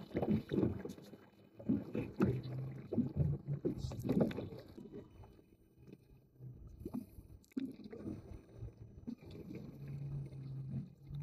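Scattered knocks and handling noises on a fishing boat's deck, then a steady low hum from the boat's electric trolling motor holding position, which comes back near the end. The owner cannot explain the noise the trolling motor is making: its lights, GPS anchor and battery all check out.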